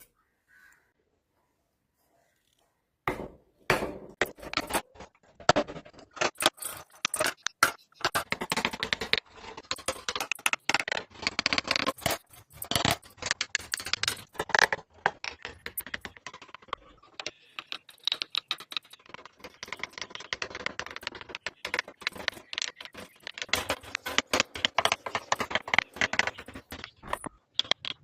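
Hand carving tools working wood: a steady, irregular run of sharp taps and scrapes as chisels cut into the wood. It starts after about three seconds of near silence.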